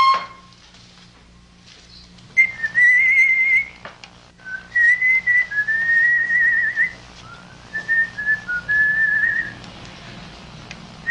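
A person whistling a tune in several short, wavering phrases that start about two and a half seconds in.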